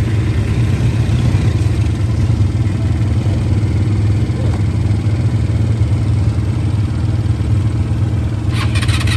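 ATV engines idling, a steady low hum. Near the end a short run of rapid clicking.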